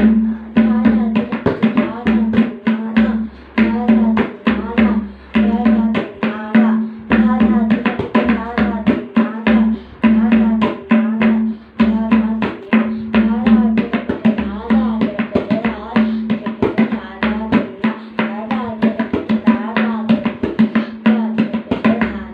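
Tabla played solo in a fast, continuous run of strokes, with a steady tone sounding underneath the strokes.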